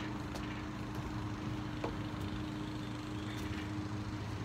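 A steady low mechanical hum, like a motor running, with a few faint ticks over it.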